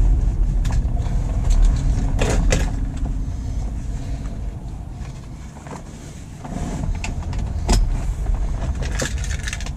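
Cabin sound of a 1997 Honda Accord on the move with its throttle position sensor unplugged: a low engine and road rumble that eases off about five seconds in and builds again a second later, with a few scattered clicks and knocks.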